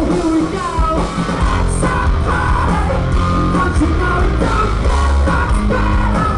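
Live rock band playing loudly: electric guitar and bass under a male lead vocal sung into the microphone.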